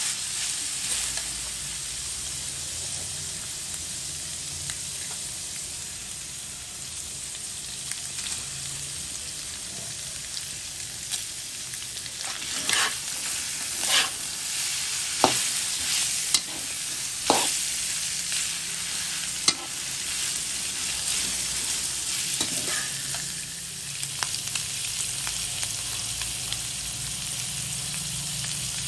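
Sliced beef sizzling in hot oil in a metal wok while it is stir-fried with a metal spatula. The spatula scrapes and knocks against the wok now and then, most often about halfway through.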